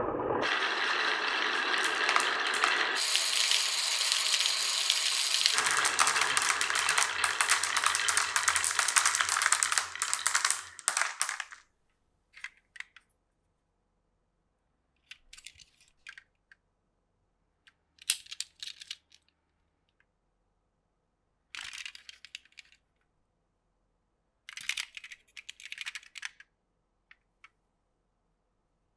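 Glass marbles rolling and rattling along a wooden marble run, a dense continuous clatter for about the first eleven seconds that changes texture a couple of times. After it stops, single marbles clack and click in short scattered bursts.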